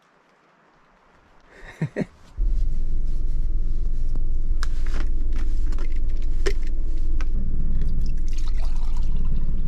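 A steady low rumble starts abruptly a little over two seconds in. Over it, sharp clicks come as camping-stove parts are fitted together, then water is poured into a cup near the end.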